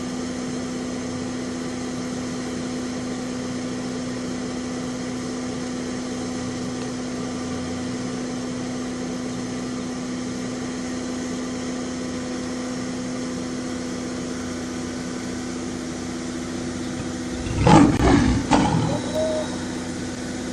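A steady, even hum at one fixed pitch, then near the end a loud lion roar lasting about a second and a half.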